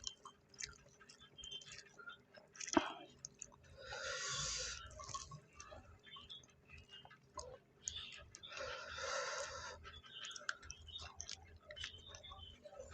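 Close-miked chewing and mouth sounds of people eating stir-fried clams, with many small clicks, one sharp click about three seconds in, and two longer noisy mouth sounds around four and nine seconds in.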